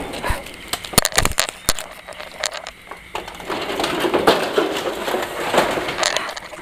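Knocks, clatter and scuffling as people run away on foot and the handheld camera is jostled and grabbed. A quick cluster of sharp knocks comes about a second in, and a rougher rustling scuffle follows later.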